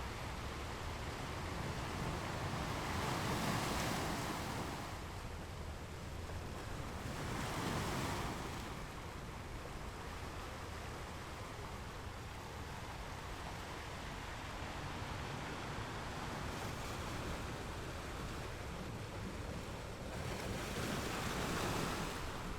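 Ocean waves breaking against rocks, with a steady wash of surf between three louder crashes: one about three seconds in, one about eight seconds in, and one near the end, each swelling and fading over a couple of seconds.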